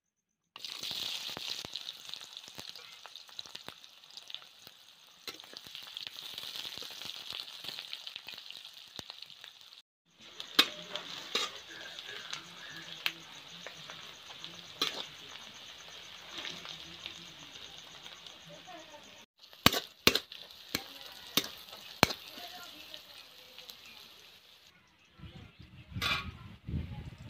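Sliced onions sizzling as they fry in hot oil in a metal kadai. From about a third of the way in, a metal spatula scrapes and knocks against the pan as the onions are stirred.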